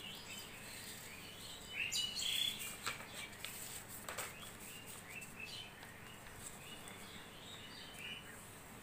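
A sheet of A4 paper being folded and creased by hand on a hard floor, with short faint rustles, the loudest about two seconds in. Small birds chirp faintly in the background.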